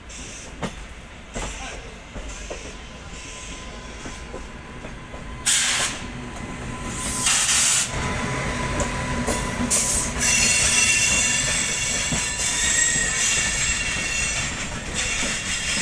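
Slow-moving ICF passenger coach rolling through a station yard. Its wheels click over the rail joints and points, there are two short loud rushes of noise around six and seven seconds in, and then a high, steady wheel squeal sets in from about ten seconds in as the train draws in to the station.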